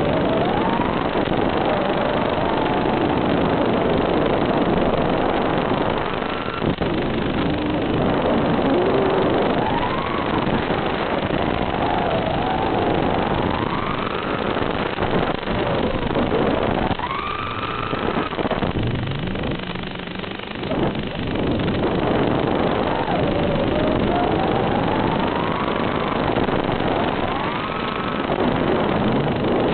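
Electric motor and propeller of an FPV aircraft whining in flight, the pitch repeatedly rising and falling with the throttle over a steady rush of air noise. The whine drops away and quietens for a few seconds about two-thirds of the way through.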